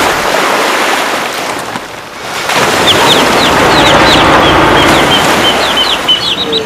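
Loud rushing noise like wind or surf, easing off briefly about two seconds in, with a quick run of short high bird chirps over it from about three seconds in.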